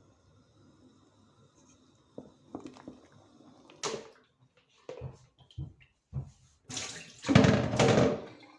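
A few light knocks and clatters, then water from a tap runs loudly into a sink for about a second and a half before stopping.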